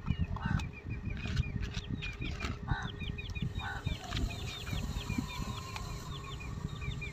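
Chicks peeping: a rapid, continual string of short, high, downward-hooked peeps, several a second, with a few lower, shorter calls among them.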